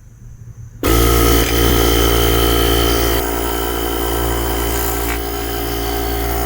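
Small electric air compressor built into a JomGand JQP2250 jump starter switching on abruptly about a second in and running steadily, a little quieter from about three seconds in, as it pressurises a bottle to push gear oil up a tube into a differential.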